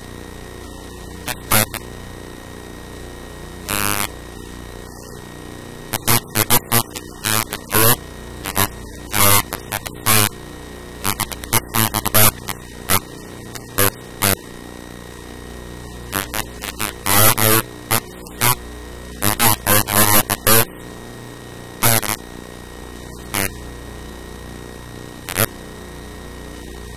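Steady electrical hum, with a person speaking in short, broken bursts over it.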